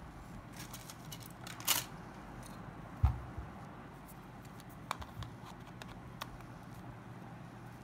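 Small clicks, a brief scrape and one louder thump from handling a Samsung Omnia II's parts and tools on a work surface, over a steady low hum.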